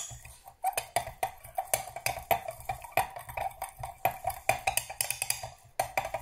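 Wooden stirring stick clicking and scraping against the inside of a glass measuring jug while mixing powder into melted soft plastic, about three knocks a second, each ringing briefly off the glass.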